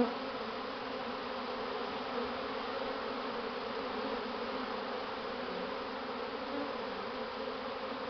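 A swarm of some 30,000 honey bees buzzing in a steady, even hum as the swarm moves into a hive box.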